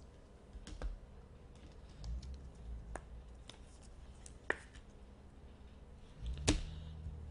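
Trading cards being handled on a table: a few scattered sharp clicks and taps as cards are flipped and set down, the loudest about six and a half seconds in.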